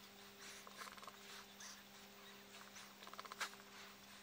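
Near silence: a faint steady electrical hum with a few soft ticks and rustles of handling, the sharpest click about three and a half seconds in.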